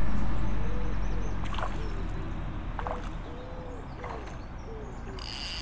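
Spinning reel's drag clicking near the end as a hooked fish takes line. Under it runs a fading low rumble on the microphone, with a bird cooing repeatedly and a few light clicks of rod and reel handling.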